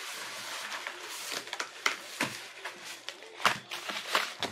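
Stiff paper envelopes rustling and slapping onto the table as a stack of them is tossed down and shuffled by hand. There are several sharp slaps over a rustling noise.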